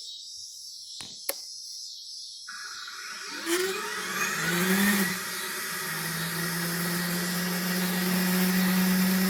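Model Sounds Inc ShockWave sound system in an FMS A-10 RC jet, playing its simulated jet engine start through a single transducer speaker. About two and a half seconds in, a rising whine spools up and settles into a steady, growing jet hum.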